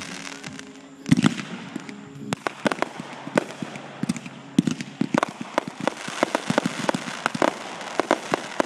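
Fireworks going off: a rapid scatter of sharp pops and crackles, with the loudest burst about a second in.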